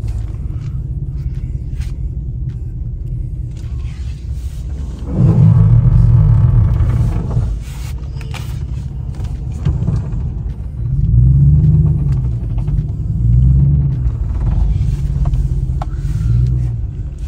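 Steady low rumble of a 2016 Chevy Tahoe driving slowly, heard from inside the cabin. It swells louder about five seconds in and again from about ten seconds on.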